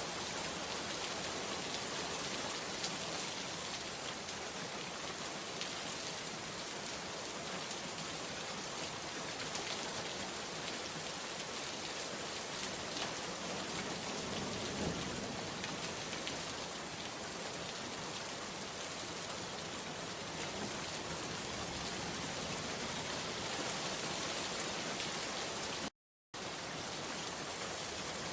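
Steady rain falling, a dense even patter of drops on surfaces. Near the end it cuts out to silence for a split second, then carries on.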